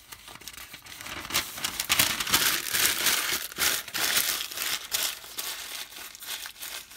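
A sheet of newspaper being scrunched up and folded in on itself by hand: a dense, crackling crinkle that starts about a second in.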